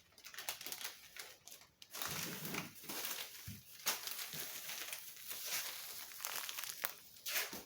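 Packing material crinkling and rustling as it is handled and crumpled, with irregular sharper crackles.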